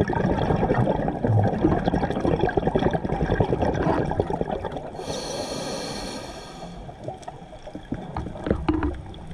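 Scuba diver breathing through a regulator underwater: a long bubbling, gurgling rumble of exhaled bubbles, then a hissing inhalation through the regulator about five seconds in, lasting under two seconds.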